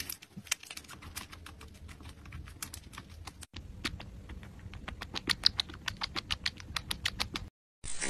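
Kittens suckling milk from small feeding bottles: rapid, irregular wet smacking clicks, broken once about halfway through and by a short silence near the end.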